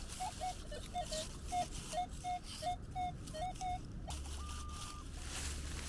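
Minelab Manticore metal detector beeping as the coil sweeps back and forth over a buried target: a string of short mid-pitched beeps, about two a second, some stepping up or down in pitch, then one brief higher steady tone about four seconds in. It is a target signal that the detectorist reads as not a buckle but sounding good.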